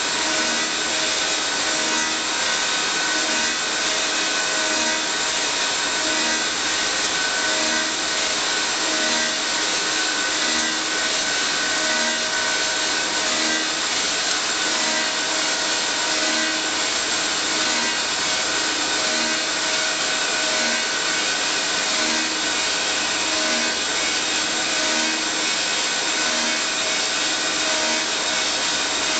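Elio Valeri 4M/65E copy lathe running, working wooden blanks: a steady rushing mechanical noise with a constant hum tone and a soft low throb repeating about every one and a half seconds.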